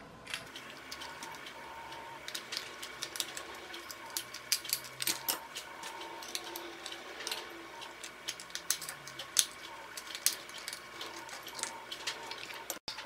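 Light, irregular clicking and tapping of small plastic toy parts and a small metal screwdriver being handled, as the clear plastic gearbox of a clockwork toy car is pried at and taken apart.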